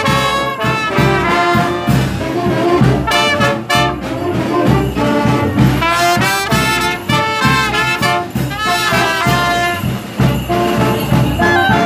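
Marching band of trumpets and saxophones playing a tune over a steady beat.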